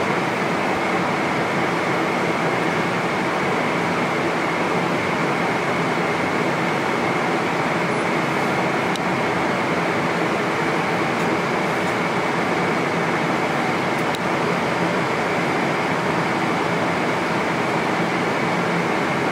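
Steady cabin noise of a Boeing 777-300ER in flight: an even rush of airflow, engine and air-conditioning noise that holds the same level throughout.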